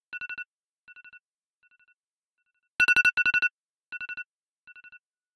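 iPhone alarm tone going off: quick clusters of rapid high beeps, each loud cluster followed by softer echoing repeats that fade away, with a loud cluster again about three seconds in.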